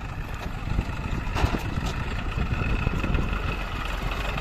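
Eicher 380 tractor's three-cylinder diesel engine running steadily as it drives past towing a loaded trolley, with two short knocks about a second and a half in.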